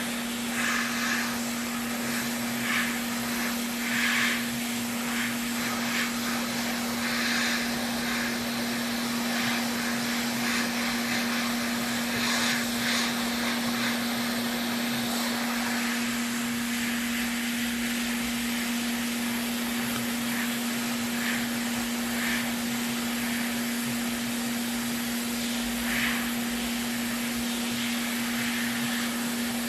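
Hot air rework station blowing steadily with a constant hum and hiss, heating a PS5's HDMI port to desolder it. Brief scratchy ticks come and go, mostly in the first half.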